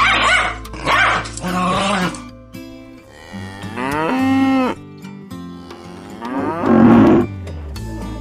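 Cow mooing sound effect over background music with a steady bass line: one long moo rising and falling about four seconds in, with shorter animal calls in the first two seconds and another near seven seconds.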